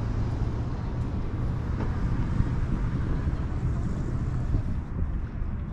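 Steady low rumble of wind on the microphone, with a faint distant motor hum underneath that fades out about four and a half seconds in.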